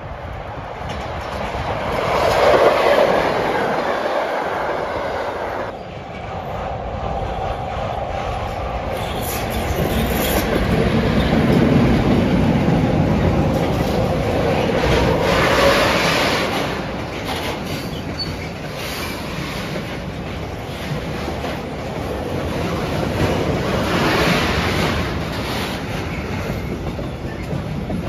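Freight train of tank wagons passing close by: a continuous rumble of steel wheels on rail with clattering over the rail joints, swelling and easing as the wagons go by.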